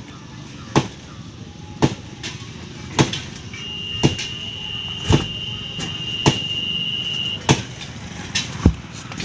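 Sharp metal knocks, roughly one a second, as a truck tyre's steel wheel rim is knocked out of the tyre; two blows land close together near the end. A thin, steady high tone runs for about four seconds through the middle.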